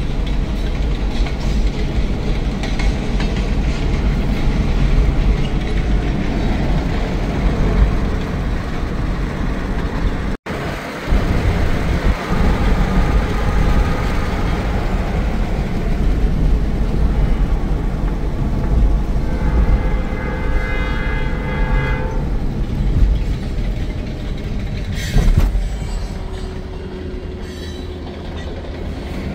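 Steady low rumble of a car driving on a gravel road, heard from inside the cabin. About two-thirds of the way through, a freight locomotive's air horn sounds a chord for about two seconds.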